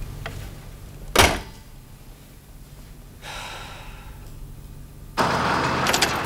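A telephone handset is put down onto the cradle of a rotary desk phone, making a single sharp thunk about a second in. Near the end, steady street traffic noise cuts in suddenly, with a few sharp clicks of a car door handle.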